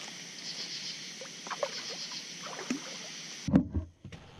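A channel catfish being reeled to the boat: a steady hiss with faint ticks, then about three and a half seconds in a few loud, sudden splashes as the fish thrashes at the surface.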